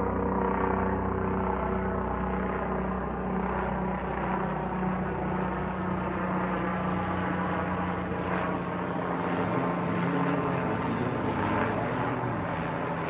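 Police helicopter flying over, its rotor and engine making a steady drone that weakens in the lowest range in the second half as it moves off.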